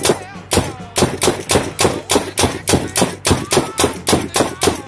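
Spyder Victor semi-automatic paintball gun firing nylon riot balls in rapid succession, about four to five sharp shots a second, after a brief pause at the start.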